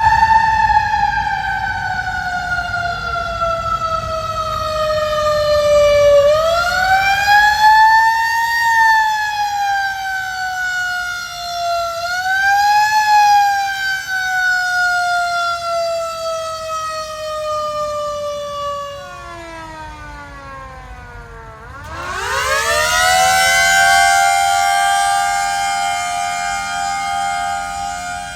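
Siren wailing in one continuous tone. It slides slowly down in pitch, is pushed back up twice about a quarter and nearly halfway through, and winds down again. Near the end it sweeps quickly up and holds a steady high pitch.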